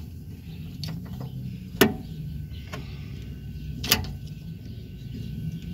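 Two sharp clicks about two seconds apart, with a few fainter ticks, as the handbrake lever and cable are fitted at the rear drum brake of a Saipa Pride, over a faint low hum.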